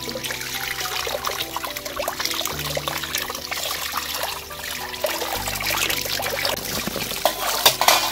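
Water running from a hose pipe and splashing over raw beef liver in a metal tray as it is rinsed. The splashing grows louder near the end.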